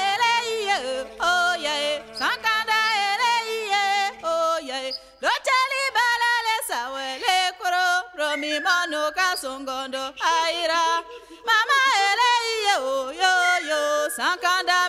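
A voice singing a wavering, ornamented melody in short phrases over a steady held drone.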